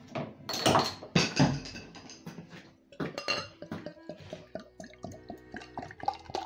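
Glass beer bottle being handled and opened, with clinks and knocks of glass: a few louder sharp sounds in the first two seconds, then a run of light clicks. Background music plays underneath.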